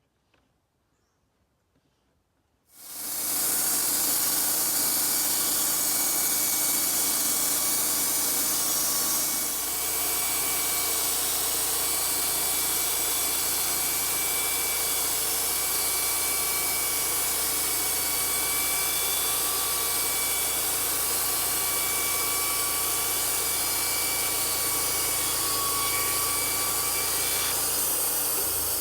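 Wood-Mizer LT-35 portable band sawmill starting up about three seconds in and then running steadily, sawing through boards, with a steady hiss and a faint high whine over it.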